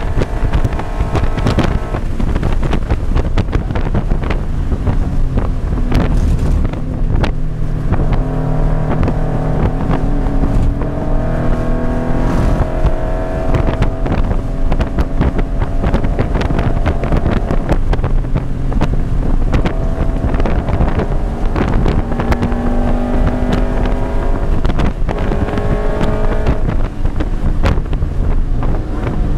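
In-cabin sound of a 2013 Scion FR-S's 2.0-litre flat-four with an aftermarket header, driven hard on a race track. The engine note climbs in several pulls through the gears and drops between them as the car slows for a turn, over steady wind and road noise.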